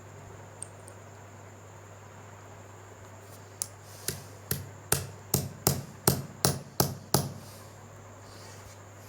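Hammer driving a small steel nail into a wooden broom handle: about ten sharp blows in quick succession starting a few seconds in, coming slightly faster toward the end.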